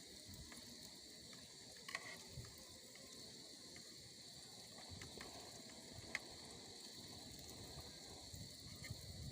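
Faint steady chorus of insects, a continuous high-pitched drone, with a couple of light clicks or knocks.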